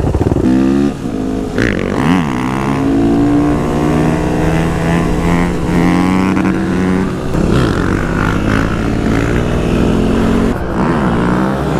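Motorcycle engines revving, the pitch climbing and dropping several times, with more than one engine note running together.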